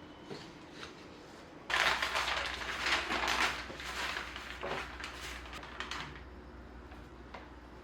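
Dense crinkling and rustling of something being handled, with many small clicks and a low hum underneath, starting abruptly about two seconds in.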